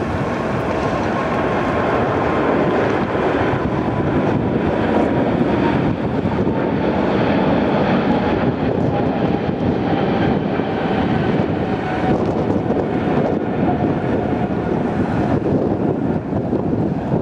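Boeing 777-300ER's twin GE90-115B turbofan engines at takeoff thrust as the airliner climbs out overhead: a loud, steady jet roar with a thin whine that slowly falls in pitch.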